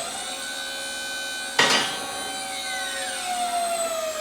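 Battery-powered dump-trailer hydraulic pump running, a steady whine driving the bender's hydraulic ram on its first test run, with its pitch sagging slightly near the end. A single sharp knock comes about one and a half seconds in.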